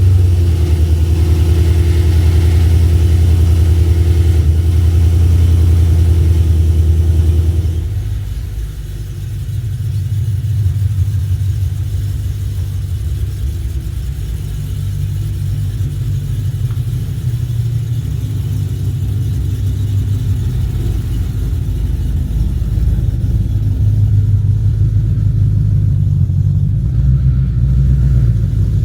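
Car engine running just after starting: a loud, steady low hum for about eight seconds, then it drops in level and settles into a rougher, pulsing idle rumble that slowly grows louder.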